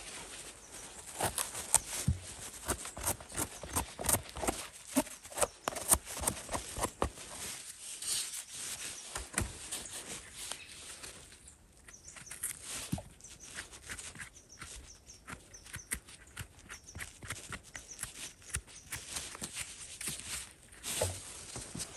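Footsteps and rustling through forest-floor litter, with irregular crackles and knocks, busiest in the first half and again near the end.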